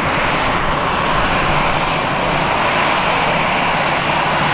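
Airliner's engines running loud and steady, a broad rush of noise that holds level without rising or falling.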